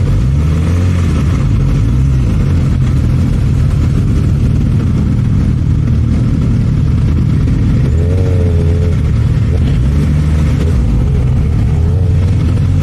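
Suzuki GSX-S1000's inline-four engine running at low speed as the bike rolls along, its note steady with small rises and falls in pitch.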